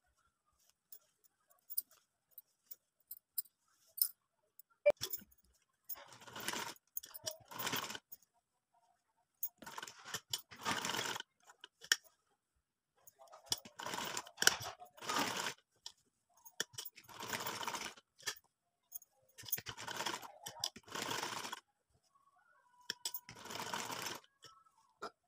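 Vintage black sewing machine stitching fabric in short runs of about half a second to a second each, often two close together, with pauses between them. Light clicks from the machine and the fabric handling come before the stitching starts, about six seconds in.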